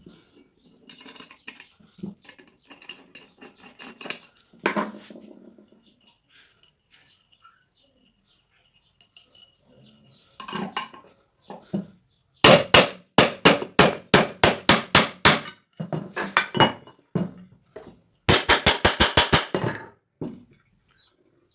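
Metal clinking and tapping: scattered light clinks, then a run of sharp, evenly spaced taps at about four a second midway, and a second, faster run of taps near the end.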